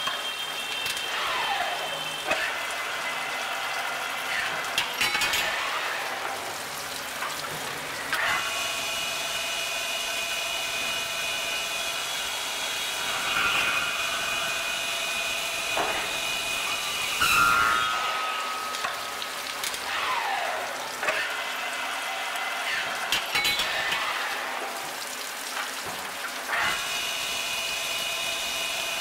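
Special-purpose drilling and chamfering machine working valve lifters under flood coolant. Its spindle motor runs with a steady whine while cutting, sweeps up and down in pitch between cuts, and gives several sharp clunks as the automatic cycle moves on.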